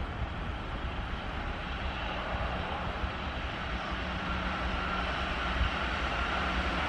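Keihan 2200 series electric train approaching on the rails, its running noise growing steadily louder, with a steady whine coming in over the last few seconds.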